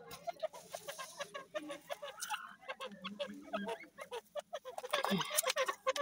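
Francolin (teetar) giving a rapid series of short clucking calls, with a brief rustle of leaves being handled on the cage near the end.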